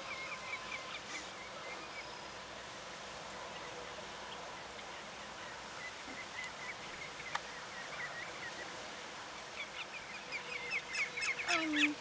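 A flock of waterbirds calling: many short, high, repeated calls, a run of them in the first couple of seconds, only scattered ones through the middle, then building into dense, louder chatter over the last two seconds. Beneath them is a steady wash of wind and water.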